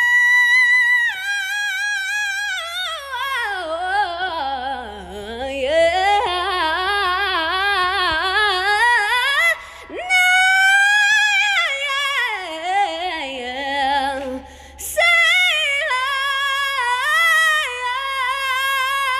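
A woman singing unaccompanied: a long high belted note with wide vibrato, then vocal runs that sweep far down and climb back up, breaking off briefly twice before more high held notes.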